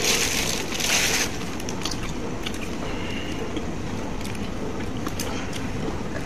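Steady background hum and hiss, with two short rustling hisses in about the first second and a few faint ticks.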